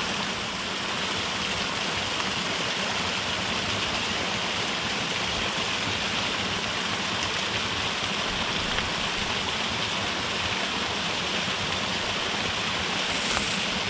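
Small mountain creek running steadily over rocks, with the trickle of a little cascade into a shallow pool.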